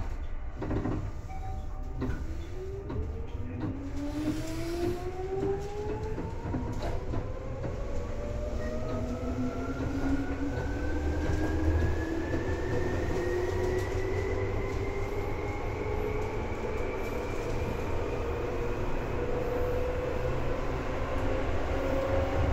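Seibu 2000 series electric train pulling away and accelerating, heard from inside the car: the traction motor whine and gear whine rise steadily in pitch over a low running rumble. A few sharp clicks come in the first seconds.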